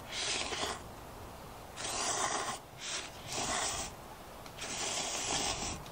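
A person slurping instant ramen noodles off chopsticks: five hissing slurps, the last and longest near the end.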